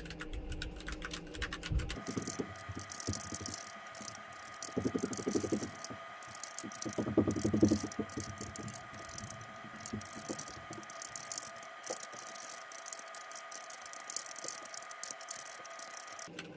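Fast typing on a full-height mechanical keyboard with Cherry MX Brown switches: a rapid, continuous clatter of key presses, over a faint steady tone. The typing starts about two seconds in and stops just before the end.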